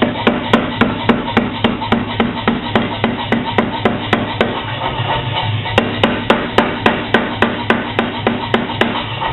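Power hammer striking hot steel plate in a fast, even rhythm of about three to four blows a second over the machine's steady running hum, drawing out and narrowing the plate. The blows pause for about a second midway, then resume.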